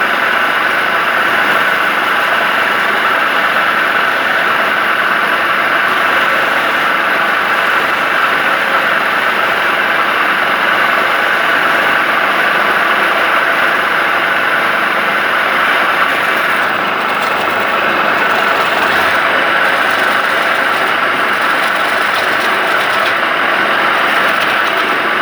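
Woodturning lathe running steadily, with a continuous loud mechanical noise that eases slightly about two-thirds of the way through.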